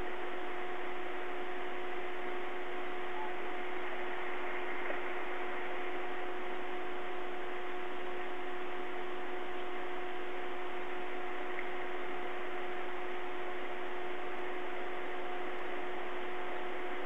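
Steady, unchanging hiss from a live nest-camera's audio feed, with a constant low electronic tone under it.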